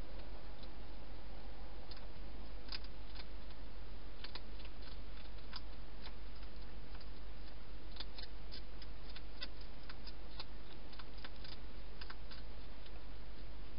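Wild hedgehog eating inside a plastic feeding box, its chewing heard as irregular sharp clicks and crunches, busiest in the second half, over a steady low hum.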